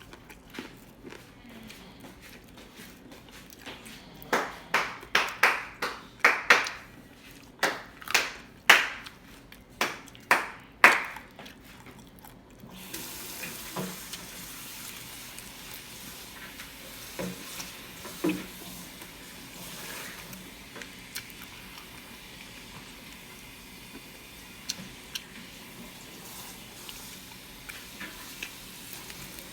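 Eating noises at a dinner table: a run of about ten sharp strokes, one every half second to a second, then a steady hiss with scattered soft clicks from about 13 s in.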